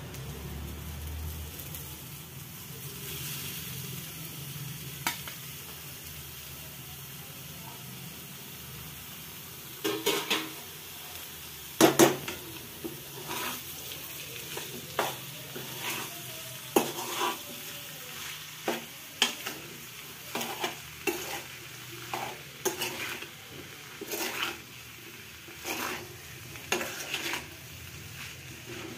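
Diced radish and its greens sizzling in hot oil in a metal kadhai. From about ten seconds in, a metal spoon scrapes and stirs against the pan in many short strokes, the loudest about two seconds later.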